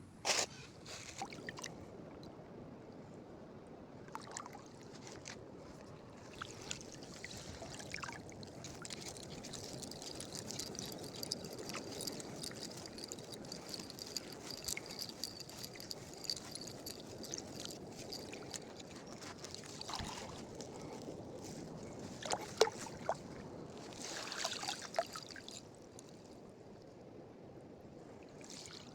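Water trickling and lapping, with scattered small knocks and clicks. A thin, steady high tone runs through the middle stretch.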